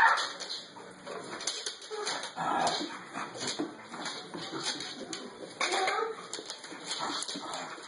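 A dog whimpering amid irregular scuffling and clicking, as a ferret play-fights with it.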